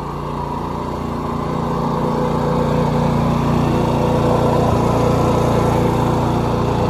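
Pressure-washing truck skid's engine and pump running steadily. The hum grows louder over the first few seconds, then holds.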